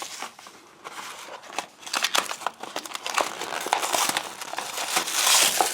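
Blind-bag wrapper crinkling in irregular bursts as it is handled and opened by hand.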